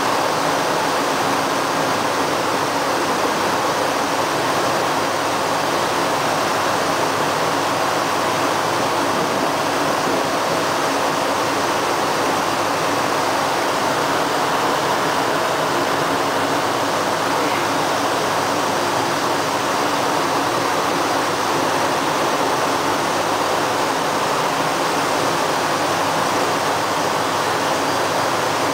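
Water rushing and churning steadily as a Panama Canal lock chamber floods: the chamber filling from below, its surface boiling up around the ship.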